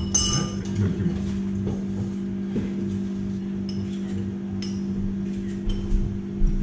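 Cutlery and dishes clinking now and then at a dinner table, a sharp ringing clink at the start and a few more later, over a steady low electrical hum.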